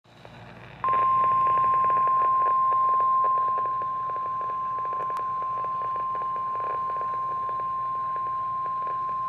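NOAA Weather Radio warning alarm tone: a single steady 1050 Hz tone comes in about a second in and holds, dipping a little in level partway through, over a hiss of radio static. The tone signals that an emergency warning broadcast is about to follow.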